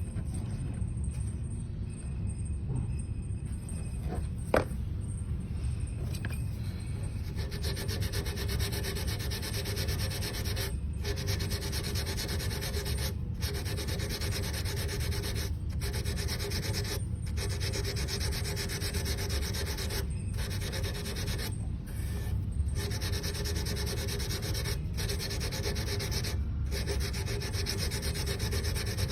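A cello nut being rubbed down by hand, with rapid back-and-forth abrasive strokes and short pauses between passes. The strokes start about seven seconds in; before that there is one sharp tap.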